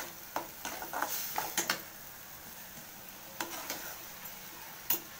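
A perforated steel ladle scraping and clicking against a metal kadai as a thick tomato-chilli gravy is stirred, over a light sizzle. The clicks come in clusters, with a lull in the middle and one louder knock near the end.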